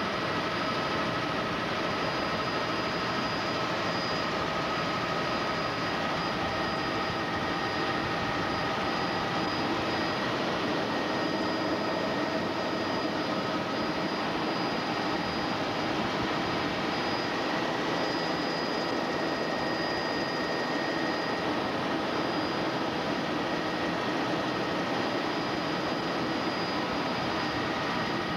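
Helicopter engine and rotor noise heard from inside the cabin in flight: a steady rush with a constant high whine on top.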